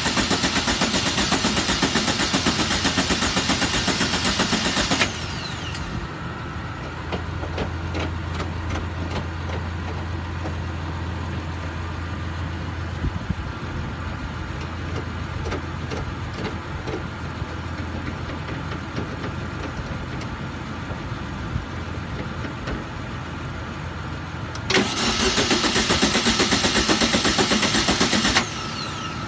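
1970 VW Beetle's newly installed starter making a loud, fast chattering twice when the key is turned, for about five seconds and then about four seconds, without the engine catching. In between there is a quieter steady hum.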